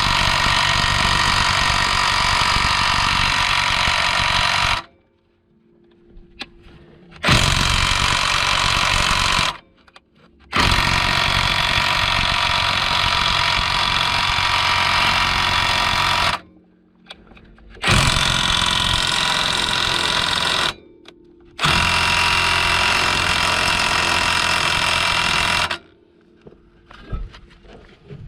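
Cordless 1/2-inch drive right-angle impact wrench hammering in five separate runs of a few seconds each, with short pauses between them.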